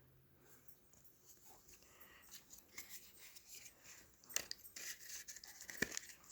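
Faint rustling and light clicks of paper craft packets and sticker sheets being handled, growing busier about four seconds in.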